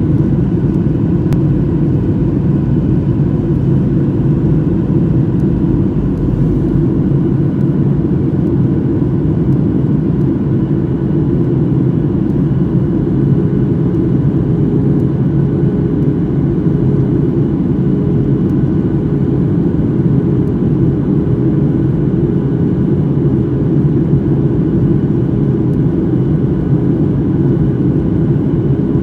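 Jet airliner cabin noise in flight: a steady, unbroken roar of engines and airflow, mostly low, with a faint steady hum running through it.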